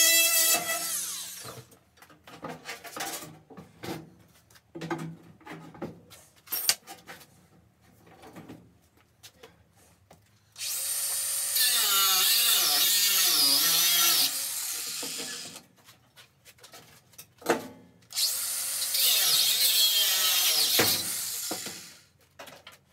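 Angle grinder with a cutting disc, run twice for several seconds at a time. Its pitch dips and recovers as the disc bites into the cut, with a few knocks between the runs.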